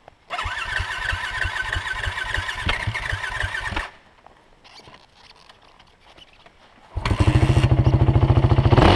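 Dirt bike engine running with an uneven beat, then cutting out about four seconds in. After about three quiet seconds it starts again and runs loud, revving up near the end.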